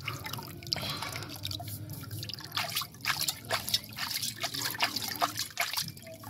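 Water dripping and trickling off the edge of a tilted metal pan into a steel bowl below, as irregular drops landing in quick succession.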